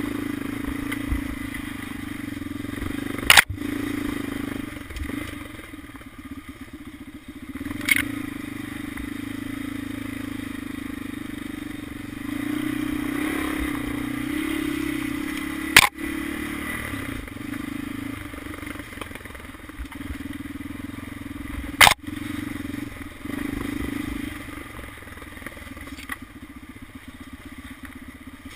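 Honda 400EX quad's single-cylinder four-stroke engine running steadily while riding, pulling harder for a few seconds midway. Four sharp knocks stand out, spread several seconds apart.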